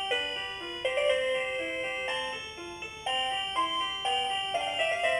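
A LeapFrog Butterfly Counting Pal baby toy playing a simple electronic instrumental tune through its small speaker in music mode, one plain note after another.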